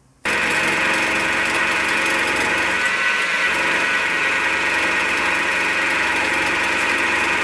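Small milling machine taking a heavy face cut, about 1.5 mm deep, in hot rolled steel with a homemade face mill carrying carbide SEHT inserts. It makes a steady, even cutting sound with a high whine, and cuts in abruptly just after the start.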